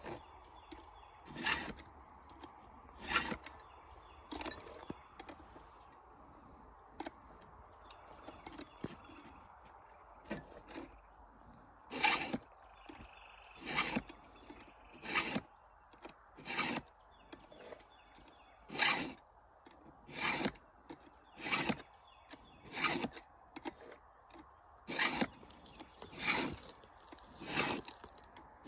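Hand file rasping across the teeth of a chainsaw chain, one stroke every second and a half or so, with a pause of several seconds early on before the strokes resume. A steady high drone of insects runs underneath.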